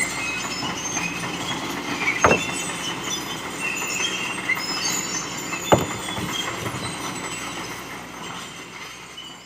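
Excavator working with metallic squealing and creaking, with two sharp clanks about two and six seconds in; the sound fades out near the end.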